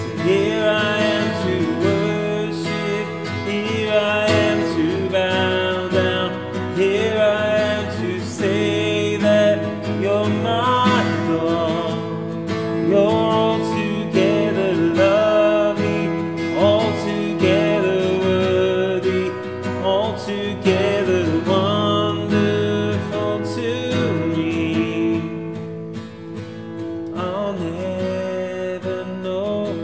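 A worship song sung to a strummed acoustic guitar.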